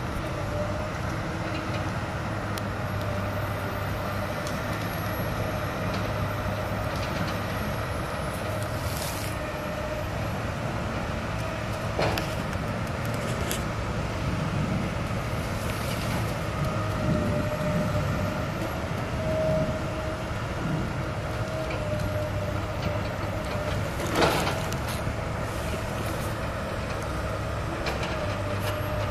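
Tracked hydraulic excavator running steadily, a continuous machine drone with a steady hum over it, broken by two sharp knocks about twelve and twenty-four seconds in.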